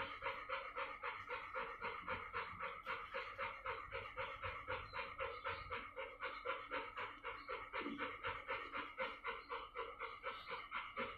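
Dog panting steadily and fast with its mouth open and tongue out, about four or five breaths a second.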